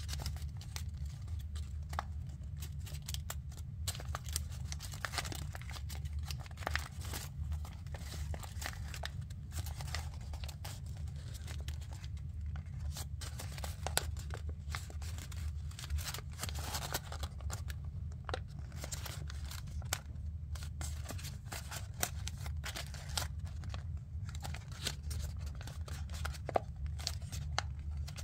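Origami paper crinkling and crackling as fingers press and shape the thick folded layers of a paper model, in irregular crisp clicks and rustles, over a steady low hum.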